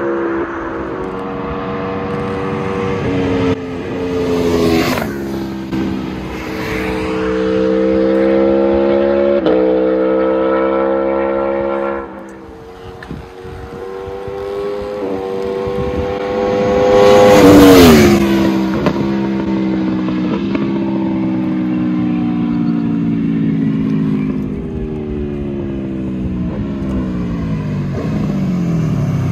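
Aprilia Tuono V4 1100 Factory's V4 engine through an SC Project SC1-R exhaust, pulling hard with the pitch stepping down at each upshift. It rises to a loud close pass about two-thirds of the way in, where the pitch drops sharply. The pitch then falls steadily as it rolls off.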